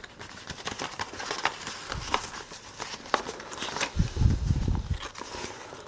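Packaging and box contents being handled: scattered clicks, taps and rustles as items are put back into a cardboard box, with a heavier low thud and rumble lasting about a second, about four seconds in.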